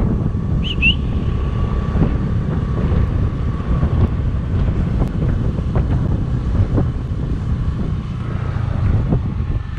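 Wind buffeting the microphone over the steady low rumble of a motorcycle riding along a paved street, with a few small knocks from bumps in the road.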